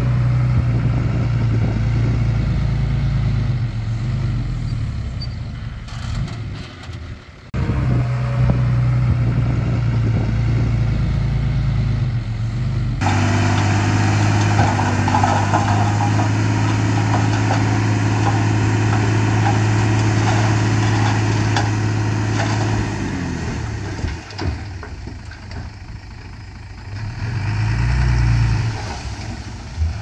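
Diesel engines of earth-moving machinery running steadily, with abrupt shifts in the sound a couple of times. Near the end the engine note slides down and quietens, then briefly rises again.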